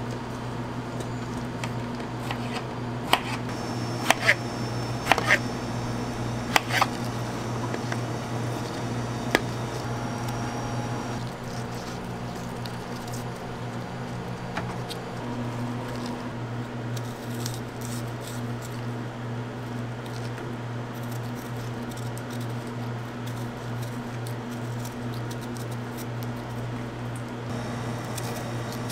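Steady low hum of kitchen equipment, with several sharp metallic clinks in the first ten seconds from utensils knocking against stainless steel bowls and trays while fruit is handled.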